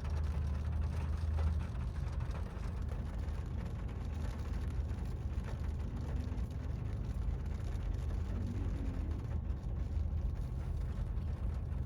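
Steady low road rumble and engine drone inside a moving car's cabin.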